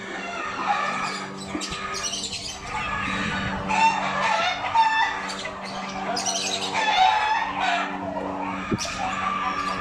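Gamefowl (chickens) squawking and calling, several loud calls one after another, over a steady low hum.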